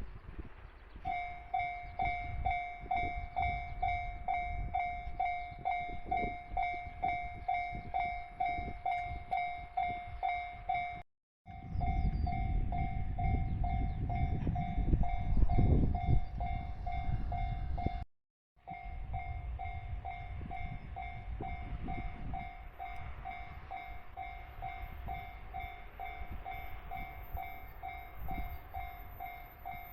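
Japanese level-crossing warning bell ringing, an electronic two-tone clang repeating about twice a second. A train rumbles past over the rails in the middle stretch, the loudest part. The sound breaks off twice for a moment.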